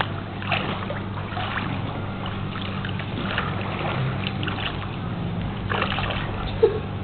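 Pool water splashing and lapping as a toddler in armbands paddles to the edge and climbs out, over a steady low hum. A short sharp sound near the end.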